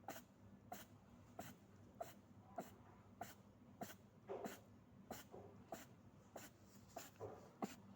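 Faint, regular series of short nasal sneezing snorts from a rabbit, about three every two seconds.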